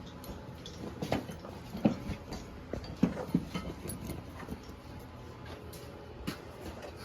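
Irregular knocks and clunks of equipment being handled, the loudest just before two seconds in and about three seconds in.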